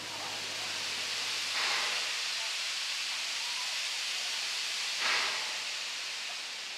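Steam hissing from ex-South African Railways NG G16 Beyer-Garratt locomotive NG129, standing with a tall plume rising from it. The hiss comes in about a second and a half in, holds steady, and swells briefly about five seconds in.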